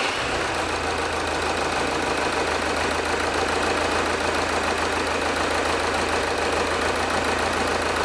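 Diesel engine idling steadily just after starting, with one injector unplugged so that one cylinder misfires.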